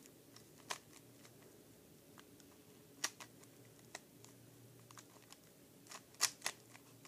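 Carbon fiber 3x3 speed cube being turned by hand while corners are cut: a few scattered soft clicks of its plastic layers, with sharper ones about three and four seconds in and a small cluster near the end.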